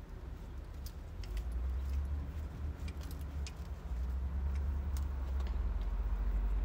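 A few light clicks and jingles of lead rope and halter hardware being handled, over a low rumble of wind on the microphone that grows stronger in the second half.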